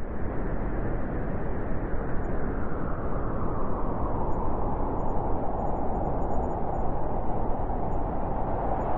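Howling wind: a steady rush of noise, its higher whistling tone strengthening in the second half.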